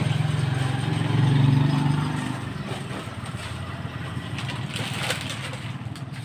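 A motor vehicle engine running, loudest in the first two seconds and fading away about two and a half seconds in. Later come a few light clicks and rustles of plastic snack packets being handled.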